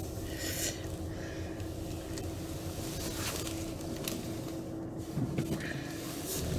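Car engine and tyre noise heard from inside the cabin while driving: a steady hum with a few faint clicks.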